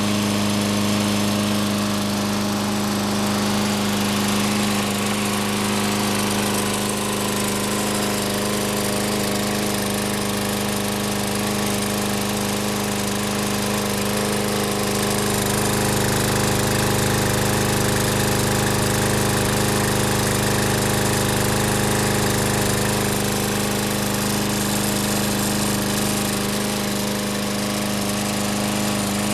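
Troy-Bilt XP walk-behind mower's 7.75 gross-torque Briggs & Stratton overhead-valve single-cylinder engine running steadily at an even speed. It has just caught after sitting for months, helped by carburetor cleaner sprayed into the intake.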